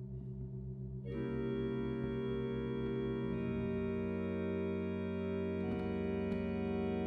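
Organ playing long held chords: a low chord sounds, then about a second in many higher notes join to make a full sustained chord, and the bass notes change a little over three seconds in.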